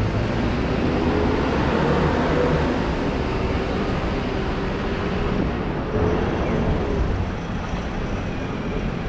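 City street traffic noise: a steady wash of passing vehicles, with a faint engine hum through most of it.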